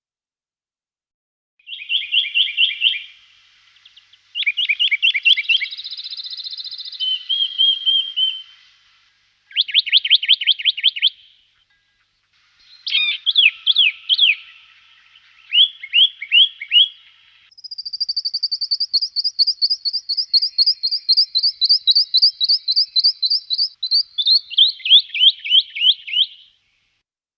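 Songbird song: several short runs of rapid, repeated high notes, then a long series of notes lasting about nine seconds that drops in pitch toward the end.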